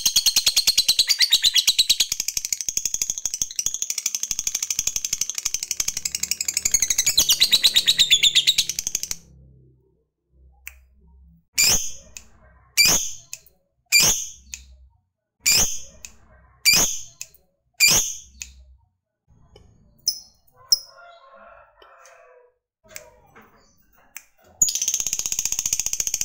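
Lovebird giving a long, rapid, high trilling chatter (the drawn-out 'ngekek' that lovebird keepers prize) for about nine seconds. Then come about six loud, sharp single chirps a little over a second apart, a few faint calls, and near the end the rapid trill starts again.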